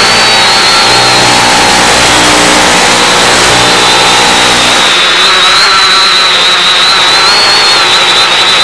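Quadcopter motors and propellers whining steadily under loud radio hiss, heard through the FPV video downlink's audio. Their high tones waver slightly in pitch as the motors hold a hover.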